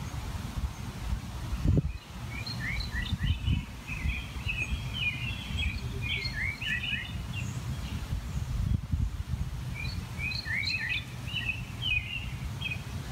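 A songbird singing two runs of quick chirping phrases, the first beginning about two seconds in and the second near the end, over a steady low rumbling background noise.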